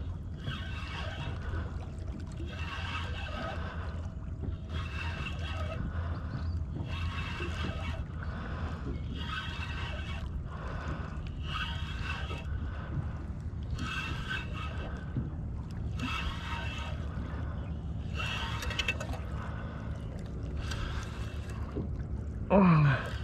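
Spinning reel cranked in repeated bursts, its gears whirring, while a fish is fought on a bent rod, over a steady low rush of wind and water against the boat. A brief, louder sound with a sliding pitch comes near the end.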